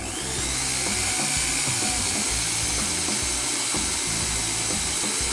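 Makita HP1630 hammer drill spinning up right at the start, then running steadily with a high whine as a 3/16-inch bit drills into steel angle.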